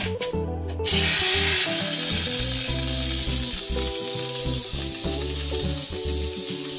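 Steam escaping through an electric pressure cooker's release valve on a quick release after pressure cooking: a loud hiss starts suddenly about a second in and carries on, easing slightly.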